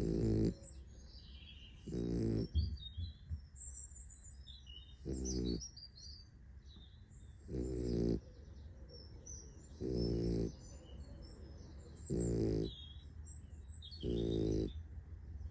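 Sleeping puppy snoring: a pitched snore about every two to two and a half seconds, seven in all. Faint bird chirps sound between the snores.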